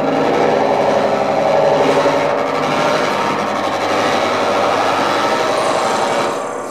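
Loud, dense, buzzing and rattling electronic sound with many layered tones, played over loudspeakers; it fades out just before the end.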